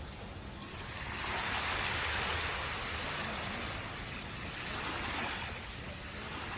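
Ocean surf washing onto a beach: a steady hiss over a low rumble. A wave swells about a second in and fades, and a smaller one rises near the end.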